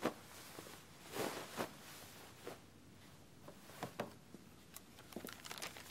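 Faint, scattered soft knocks and rustles of a person dropping onto a sofa and shifting about, with light taps as things on the coffee table are handled. The loudest knock comes right at the start, as he sits down.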